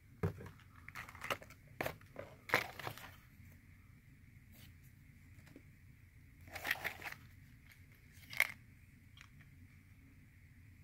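Plastic blister packs of fishing lures being handled in a cardboard box: a run of crackles and clicks in the first three seconds, another crackle about six and a half seconds in, and a sharp click just after.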